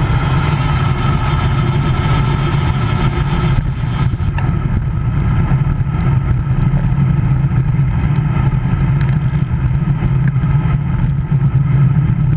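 Wind buffeting a handlebar-mounted action camera's microphone on a road bicycle riding at speed: a steady, loud rumble. The higher hiss drops away about four seconds in, and a few faint clicks come later.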